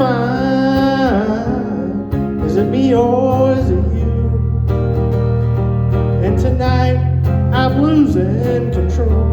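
Live country band playing: acoustic guitar over a steady bass line, with a bending melody line carried above it.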